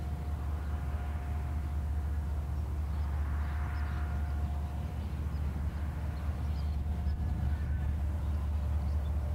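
Steady low rumble of a train at a rail junction, with wind buffeting the microphone and a faint steady tone above it.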